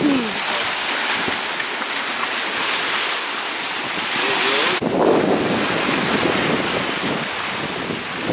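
Sea waves washing against shoreline rocks, with wind blowing on the microphone. The sound changes suddenly about five seconds in.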